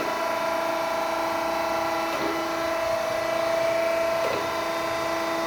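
Okamoto ACC-1224DX surface grinder running in plunge feed: a steady whine made of several constant pitches from the spindle and hydraulic drive.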